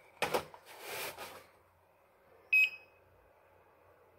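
One short, high electronic beep from a CP Plus DVR's buzzer as the recorder boots, about two and a half seconds in. It comes after a few knocks and a brief rustle of handling near the start.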